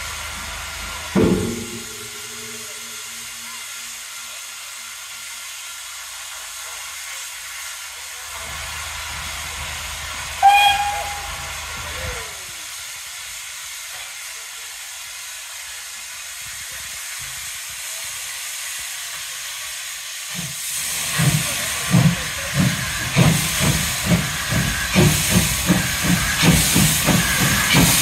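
0-8-0T steam tank locomotive No. Tkp-5485 standing with a steady steam hiss, with a brief ringing clang about a second in. About ten seconds in comes a short, loud whistle blast that falls in pitch as it dies away. From about twenty seconds the engine starts away, its exhaust beats quickening from about one to two or three a second, with the drain cocks hissing.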